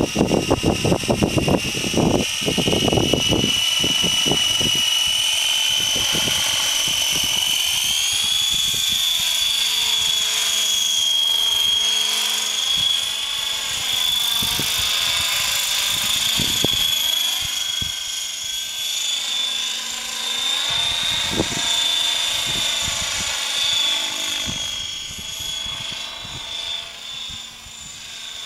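Gaui Hurricane 550 electric RC helicopter in fast flight: a high, steady motor and rotor whine whose pitch rises about eight seconds in and then wavers up and down as the helicopter moves around, fading near the end. Low knocks in the first few seconds.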